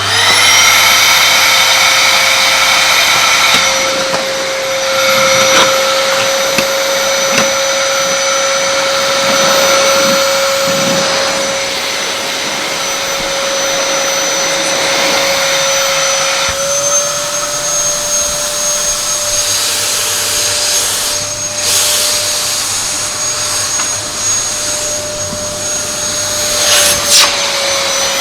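Vacuum cleaner motor spinning up to speed, then running with a steady whine over a rush of air. Its pitch rises slightly about halfway through and drops back near the end. A couple of brief knocks are heard in the later part.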